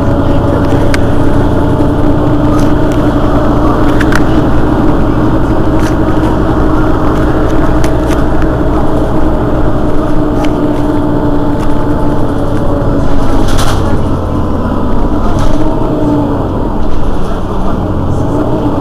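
Mercedes-Benz Citaro city bus standing with its rear engine idling: a steady low rumble with a steady whine over it, and a few light clicks.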